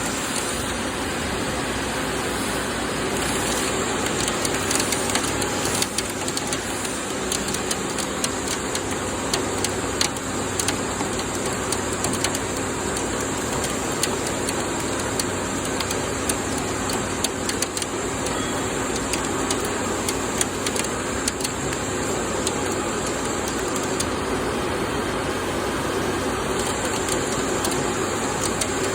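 Doosan PUMA GT2600 CNC lathe running a cut in SUS316 stainless steel: a steady machine hum and coolant noise with scattered sharp ticks throughout.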